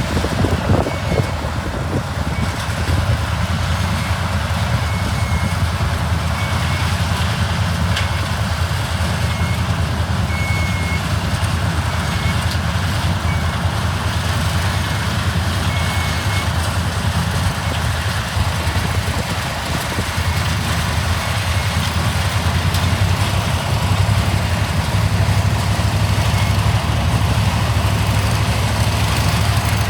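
Engine of vintage harvest machinery running steadily at a low, even pitch, with faint short high beeps now and then.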